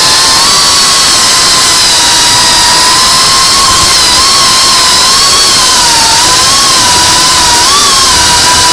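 Motors and propellers of a GEPRC Cinelog 35 V2 cinewhoop FPV drone, whining over a hiss. The whine's pitch wavers up and down as the throttle changes.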